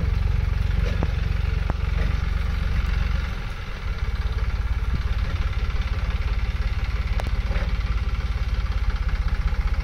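Massey Ferguson 9500 tractor engine running under load while driving a KS straw reaper that chops stubble into tooodi, a steady heavy rumble with machine clatter and a few sharp clicks. The sound dips briefly about three and a half seconds in, then carries on steadily.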